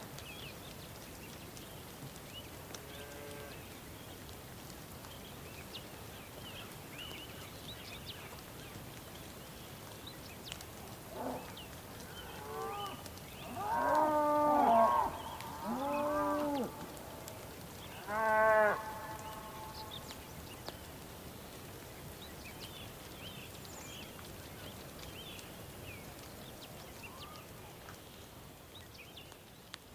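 Cattle mooing in a series of drawn-out calls through the middle, the loudest about halfway, with scattered small bird chirps over a quiet rural background.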